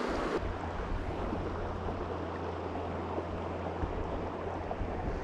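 Small mountain creek running over rocks, a steady even rushing of water, with a low steady rumble underneath from about half a second in.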